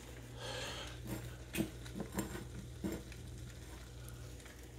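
A few light taps and soft rustles as chopped fresh parsley is pinched from a small ceramic bowl and sprinkled over spaghetti in a pan, over a faint low hum.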